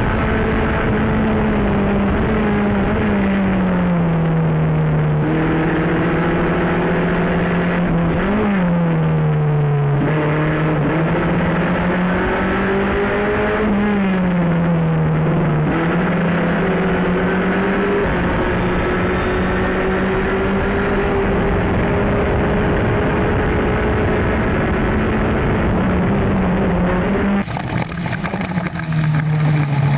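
Onboard sound of a Formula F race car's 1600 cc four-cylinder engine at racing revs, its pitch falling as the driver slows for corners and climbing again as the car accelerates away. Near the end the sound cuts to another car's onboard engine, which sounds more uneven.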